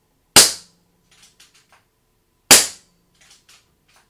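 Two shots from an Air Arms S510 XS TDR .22 PCP air rifle, moderated by its built-in silencer, about two seconds apart. About a second after each shot come a few light clicks as the side lever is cycled to chamber the next pellet.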